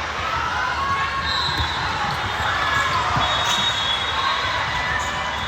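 Sneakers squeaking on a hardwood court during volleyball play, with short dull thumps and a steady murmur of voices. The squeaks come as high tones and short chirps several times.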